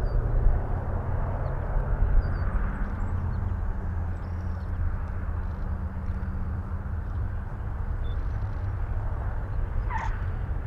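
Twin radial engines of a vintage twin-engine bomber droning at low power as it lands, easing off slightly a few seconds in. A short tyre squeal comes near the end as the main wheels touch the runway.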